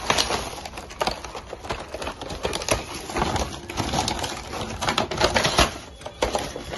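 Clear plastic wrapping and a plastic blister pack crinkling and crackling as they are handled and pulled apart, with many irregular sharp crackles.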